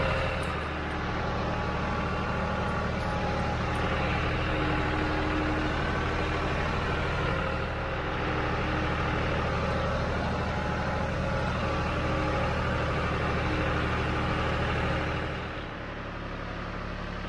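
John Deere tractor's diesel engine running steadily while the tractor drives through tall grass. About fifteen seconds in it drops to a quieter, lower run, like an idle.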